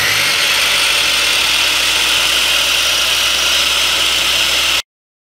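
Brushed electric motor of a Panda 355 mm abrasive chop saw running at full speed with no load, a loud steady high whine; the saw is on a test run to check its two carbon brushes and blade wobble before any cutting. The sound cuts off suddenly near the end.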